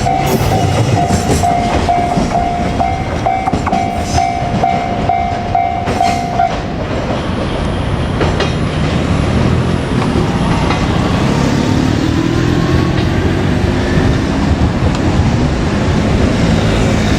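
Container freight train rolling past with a loud, steady rumble and irregular clacks of wagon wheels over rail joints. A level-crossing bell rings in even pulses over it and stops about six seconds in.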